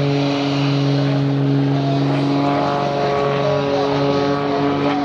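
Aerobatic display plane's piston engine and propeller running at steady power, a constant droning hum with little change in pitch.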